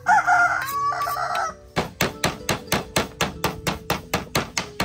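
A rooster crows for about a second and a half. Then a knife chops rapidly on a wooden chopping board, about five cuts a second, through green stalks.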